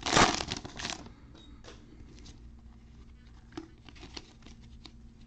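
Shiny plastic wrapper of a Panini Prizm football card pack crinkling loudly as it is torn open in about the first second. After that come faint ticks and rustles as the cards are slid out and handled.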